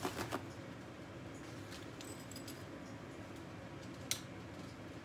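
Paper towel being handled, rustling softly, with a few light clicks near the start and one sharp tap about four seconds in.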